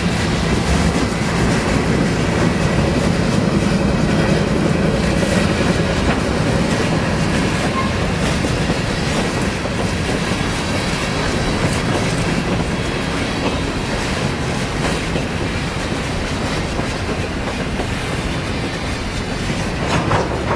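Norfolk Southern coal hopper cars rolling past on the rails, a steady heavy rumble with occasional wheel clacks. The locomotives' engine drone fades out over the first several seconds.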